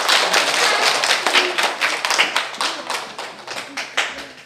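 A group of people clapping, a dense patter of handclaps that thins out and dies away near the end.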